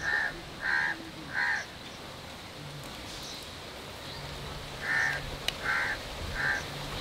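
Crow cawing in two runs of three caws each, one at the start and another about five seconds in.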